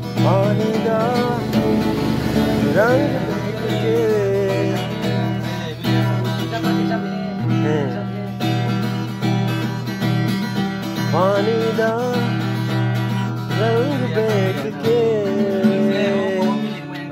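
Acoustic guitar strummed steadily in chords, with a man's voice singing a melody over it in several phrases.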